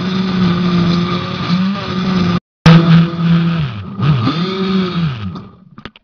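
Countertop blender motor running on cubed carrots and oil. It cuts out for a moment about two and a half seconds in, then restarts, its pitch dipping and rising a few times as it works through the carrot chunks, and stops near the end.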